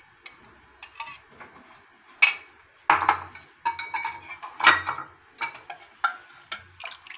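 Long metal spoon stirring milk in a stainless steel pot, knocking and clinking against the pot's sides in short, separate strikes from about two seconds in. The milk is having its yogurt starter mixed in to set as raib.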